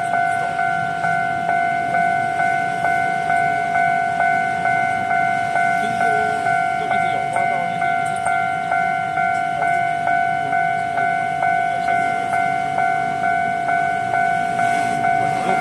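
Level-crossing warning bell ringing steadily: a bright ringing tone struck about twice a second, with the barriers down to warn that a train is approaching.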